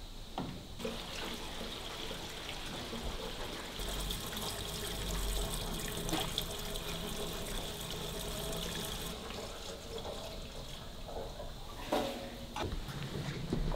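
Petrol pouring in a steady stream from a steel jerry can through a plastic funnel into a car's fuel filler. The pour stops near the end, and the can knocks a few times as it is lifted away.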